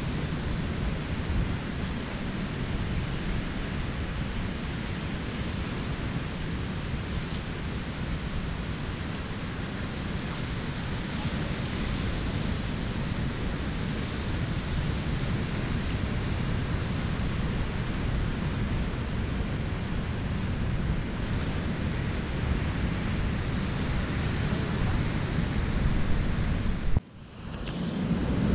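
Ocean surf breaking, with wind rumbling on the microphone. The sound cuts out for a moment near the end, then comes back louder.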